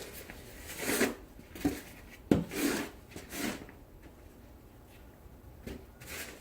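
Snow shovel scraping through snow in short rasping strokes, with a sharp knock of the blade about two seconds in and a quiet spell before two last strokes near the end.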